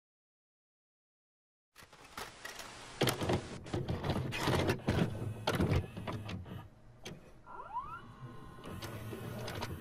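Silence, then about two seconds in a videocassette recorder sound effect begins: clicks and clunks of the tape mechanism with a motor whirring, and a short rising whine near eight seconds in as it goes to play.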